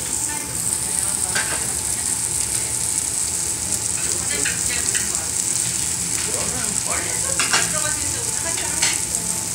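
Pork belly and garlic sizzling on a round Korean barbecue grill plate: a steady frying hiss.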